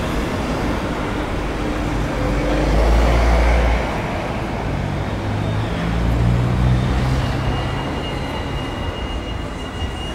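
Town-centre street traffic: cars passing with a steady low rumble, swelling louder about three seconds in and again around six to seven seconds. A thin steady high tone joins about seven seconds in.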